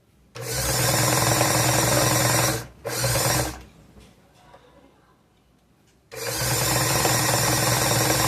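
Elgin domestic sewing machine running in bursts: about two seconds, a short second run, a pause of a few seconds, then running steadily again. It runs quietly, its shaft bushing reset and the thread that jammed the hook cleared.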